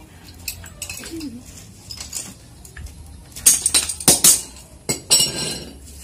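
Small brass check valve being handled and worked by hand, giving a scatter of sharp metallic clicks and clinks, loudest in a cluster about three and a half to four and a half seconds in and again near the end.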